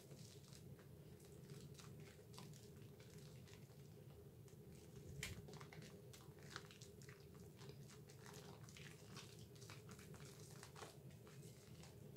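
Hands lathering a Dove soap bar into thick foam: faint, irregular wet squishing and crackling of the lather, over a low steady hum.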